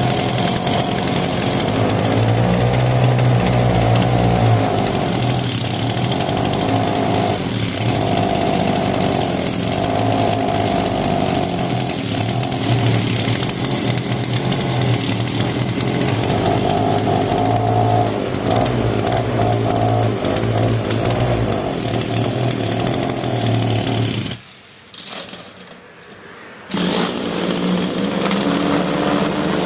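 Small two-stroke brush-cutter engine, running unloaded off its shaft, with a steady buzzing note. Near the end it drops away sharply for about two seconds, then runs again.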